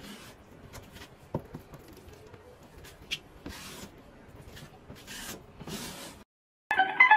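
Putty knife scraping and smoothing joint compound over a wall seam, in short strokes about one a second. The strokes stop about six seconds in, and keyboard music starts near the end.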